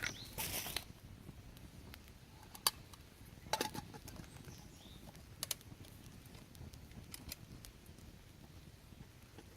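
Scattered sharp clicks and light taps, a few seconds apart, with a brief rustle just after the start.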